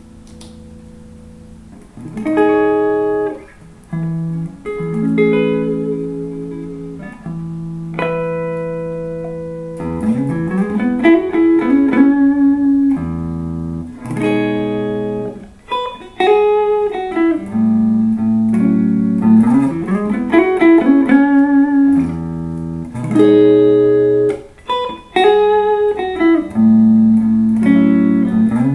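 Clean electric guitar: a 2008 Epiphone Sheraton II semi-hollow played through a Fender Blues Junior valve amp on its clean setting. Ringing chords come in about two seconds in. From about ten seconds in, single-note lead lines with many upward string bends take over.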